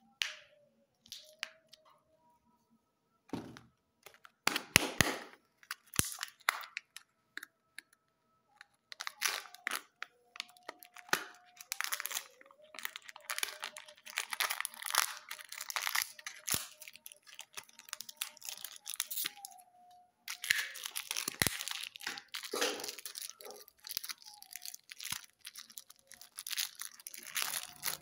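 Kinder Joy egg wrappers and a toy's clear plastic bag being crinkled and torn open by hand: scattered crackles at first, then near-continuous crackling and rustling from about nine seconds in.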